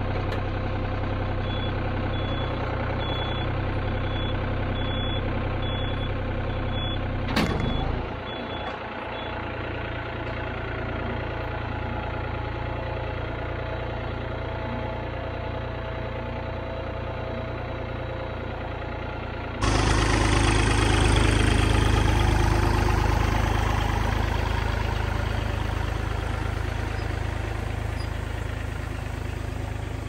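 Farm tractor engine running steadily. There is a brief knock about seven seconds in, after which the engine note drops lower. It is louder and fuller from about twenty seconds in.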